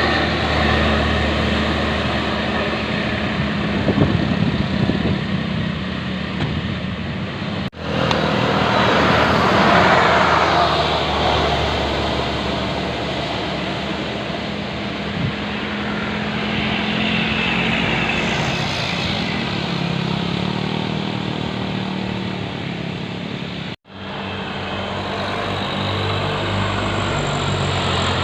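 Buses driving past on a road: engine and tyre noise that swells and fades as vehicles go by, with the sound cut off abruptly twice.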